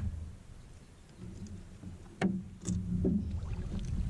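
A few sharp knocks on a small fishing boat over a low rumble: one right at the start and two more a little past two seconds in.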